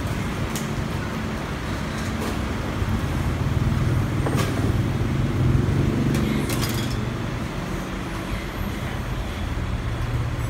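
A motor vehicle's engine rumbling low and steady, swelling around the middle, with a few sharp clinks of crockery as bowls are put into a plastic tub.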